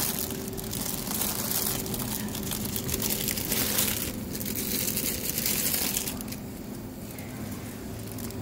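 Plastic bags crinkling in bursts, over the steady hum of a refrigerated produce case.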